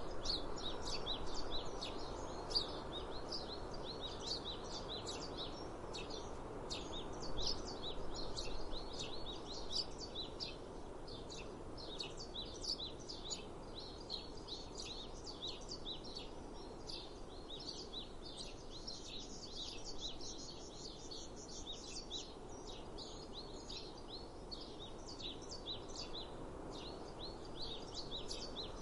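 Many small birds chirping and twittering continuously, dense overlapping calls, over a steady background hiss of outdoor ambience.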